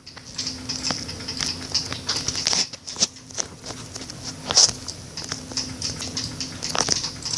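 Irregular taps and scratchy rubbing of a finger or stylus on a tablet touchscreen while drawing, over a steady low hum.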